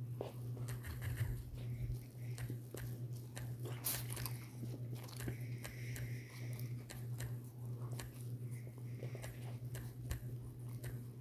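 Faint room noise: a steady low hum with scattered soft clicks and crunchy rustles at irregular intervals.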